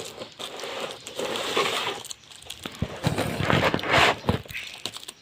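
Irregular rustling and clattering of things being handled, in uneven bursts with a few sharp clicks.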